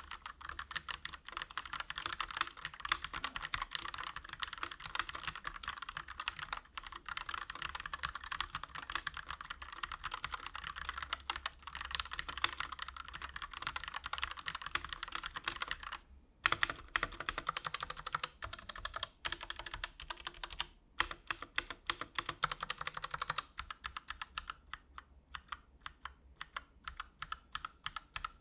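Fast continuous typing on a Koodo Beast Pro mechanical keyboard with linear Gateron Red switches, a dense run of key clicks. It pauses briefly twice in the middle, and near the end the keystrokes come slower and more spaced out.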